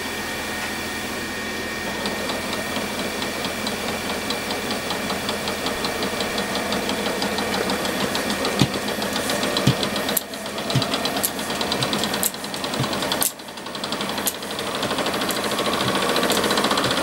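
Rhombic-drive Stirling engine running on its test run: a steady, rhythmic mechanical knocking with a few sharp clicks, growing louder toward the end.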